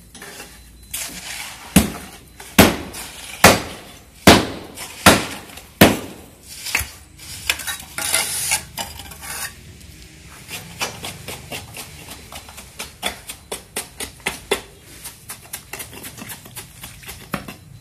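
Concrete-block (batako) mix of sand and cement being pounded and packed into a block mould with hand tools: a run of sharp knocks about one a second for the first few seconds, then lighter, quicker tapping at several a second.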